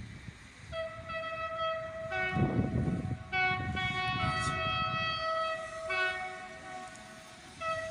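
Locomotive horns sounding long, overlapping blasts at two or more pitches for several seconds, then briefly stopping before another blast near the end, over a low rumble of wind noise.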